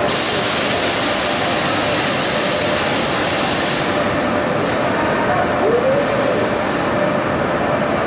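Renfe trains running in the station as one pulls out: a steady noise of train and station, with a bright hiss that stops suddenly about four seconds in.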